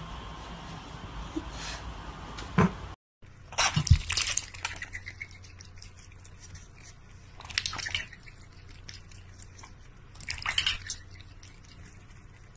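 A cat lapping water from a stainless steel bowl, in three short runs of quick laps about three seconds apart, after a short break about three seconds in.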